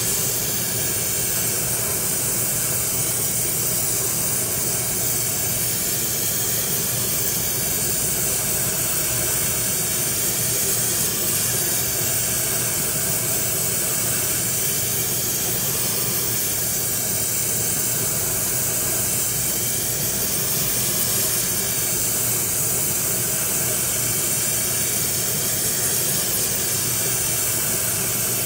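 Gas torch flame hissing steadily while heating a seized bolt red hot so it can be worked loose.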